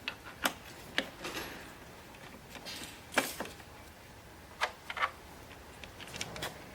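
About ten irregular clicks and light knocks from hard parts and tools being handled during machine assembly, the loudest about three seconds in.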